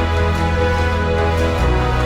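Background music with sustained pitched chords and a steady bass line that shifts to a new note about a second and a half in.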